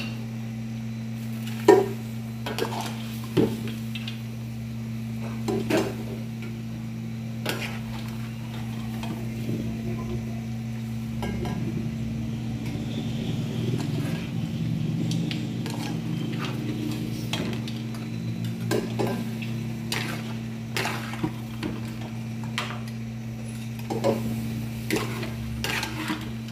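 A metal ladle scraping and knocking against an aluminium caldero as goat stew is scooped out and poured into a pressure cooker, with irregular clinks every second or two over a steady low hum.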